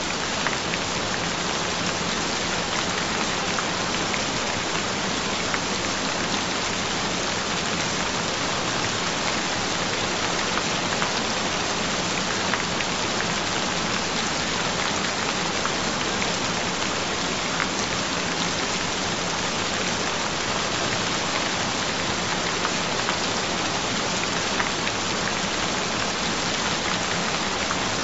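Rain falling steadily, a dense even patter with an occasional sharper drop.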